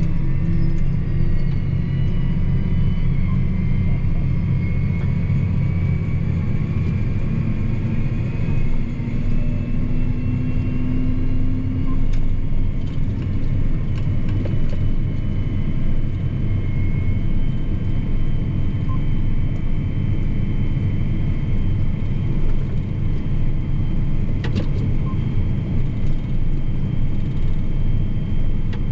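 John Deere 8245R tractor's diesel engine and drivetrain heard from inside the cab, a steady low drone with a faint high whine above it. The engine pitch rises briefly about a third of the way in, and a few faint clicks come from the cab.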